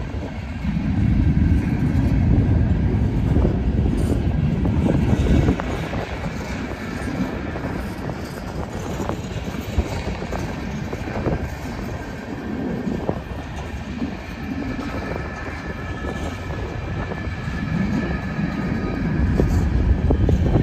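Long freight train rolling past: a steady low rumble of the cars, with wheels clicking and knocking over rail joints. It is louder for the first few seconds and swells again near the end.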